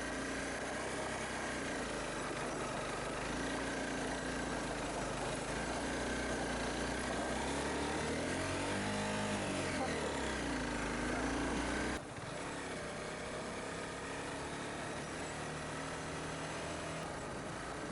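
Honda CBR250R motorcycle engine running under way, mixed with wind and road noise. The pitch swells and falls back once near the middle. About two-thirds of the way through, the sound changes abruptly to a slightly quieter, steady run.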